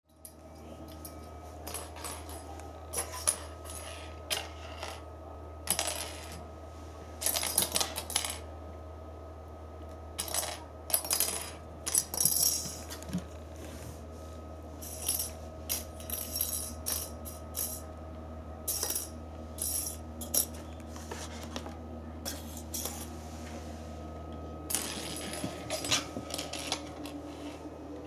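Irregular light clinks and clatters of small hard objects being knocked about, some in quick clusters, over a steady low hum.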